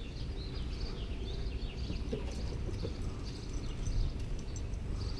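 Outdoor ambience: birds chirping now and then over a steady low background rumble.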